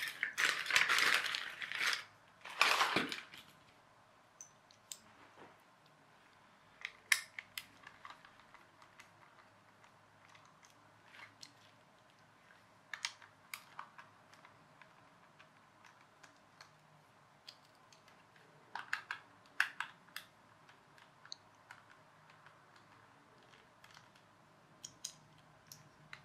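A plastic radio-controlled toy 4x4 being handled and turned over: two louder scraping rattles in the first three seconds, then scattered light plastic clicks and taps.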